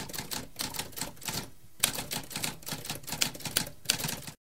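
Typewriter keys typing in quick, irregular clicks, several a second, with a short pause about one and a half seconds in; the typing cuts off suddenly near the end.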